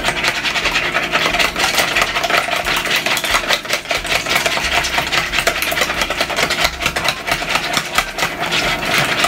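Wire whisk beating eggs and pineapple juice in a bowl: rapid, continuous clicking and scraping of the wires against the bowl.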